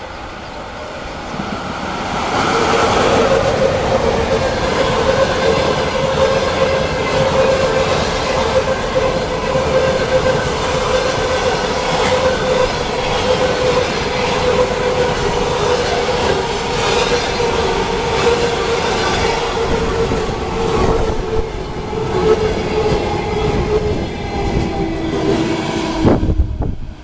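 Passenger train hauled by an ЭП1М electric locomotive passing close by, the noise rising about two seconds in as it nears and falling away near the end as the last coach goes by. Heavy wheel-on-rail rumble and clatter, with a steady squeal running through it that sinks slightly in pitch toward the end.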